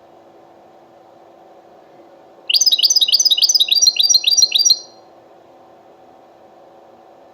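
European goldfinch giving a burst of fast, repeated high chirps, about six notes a second for a little over two seconds, starting a few seconds in. A faint steady hum runs underneath.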